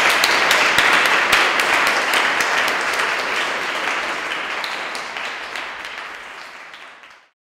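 Audience applauding: dense hand-clapping that slowly thins and fades, then cuts off suddenly near the end.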